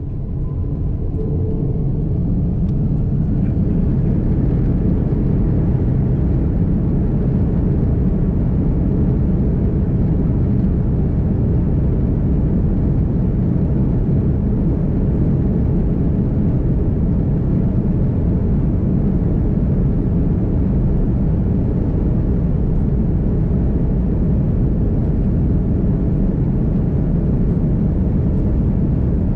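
Airbus A330-200 jet engines spooling up to takeoff thrust, heard inside the passenger cabin: the sound climbs over the first few seconds, then holds as a loud, steady rumble through the takeoff roll.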